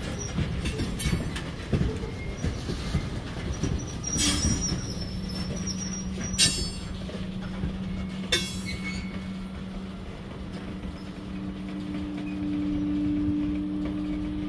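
Freight train tank cars rolling slowly past as the train brakes toward a stop: a low rumble with three sharp wheel clanks, and a steady low brake moan that sets in about a third of the way through, joined later by a slightly higher tone that swells near the end.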